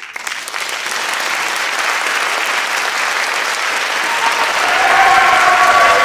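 Audience applause: steady, dense clapping that swells a little about five seconds in.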